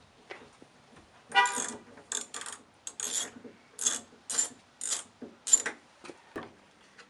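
Ratchet wrench clicking in a series of short bursts, about two a second, as it loosens the 10mm nuts holding a truck's side mirror.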